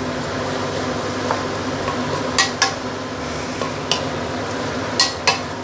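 Sweet potato leaves being stir-fried on high heat in a stainless steel pan, a steady sizzle under a wooden spatula stirring and flipping them. The spatula knocks sharply against the pan a few times, in pairs about two and a half and five seconds in.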